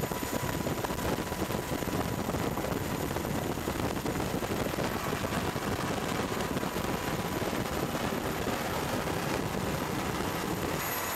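Steady, dense rumble of aircraft noise, heaviest in the low end, with no rise or fall in pitch.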